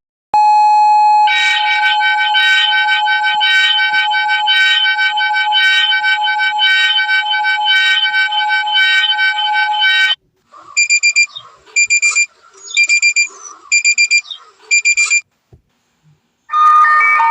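Emergency-alert-style alarm tones. A single steady tone thickens about a second in into a harsh, loud multi-tone alarm that holds for about ten seconds and cuts off sharply. A run of short, high-pitched beeps follows, and a melodic tune starts near the end.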